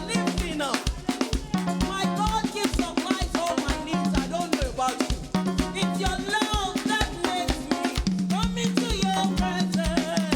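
Upbeat praise and worship music: a drum kit keeps a steady, quick beat under repeating bass notes, with voices singing over it.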